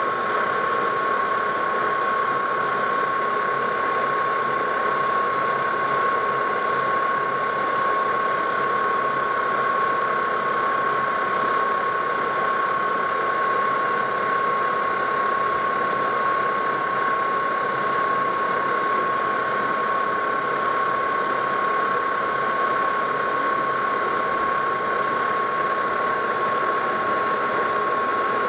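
Metal lathe turning the outside diameter of a disc glued to the chuck face, taking a light cut. It runs steadily, with one strong, steady high-pitched whine over the noise of the machine.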